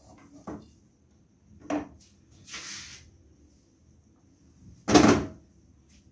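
Kitchen handling noises on a countertop: a few light knocks, a short swish, and a louder thump about five seconds in.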